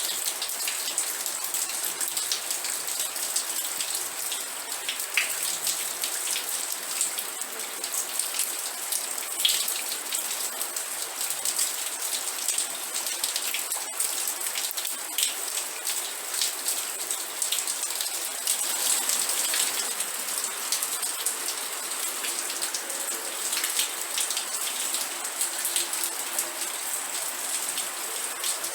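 Steady rain with many close, crisp drops ticking and pattering on a surface.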